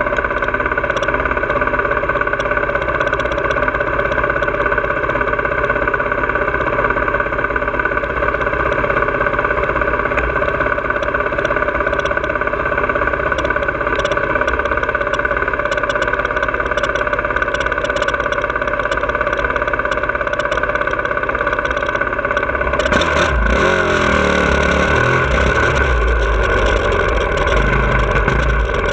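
2017 Honda CRF450R's single-cylinder four-stroke engine running under load at a steady pitch, heard close up from the bike, with wind noise. About 23 seconds in the wind rush grows and the engine pitch swings up and down as the throttle changes.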